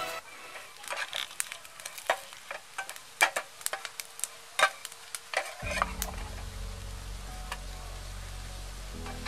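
Metal spatula scraping and knocking against a nonstick frying pan as vegetables are stir-fried, with a light sizzle under the clicks. A low steady hum comes in a little past halfway.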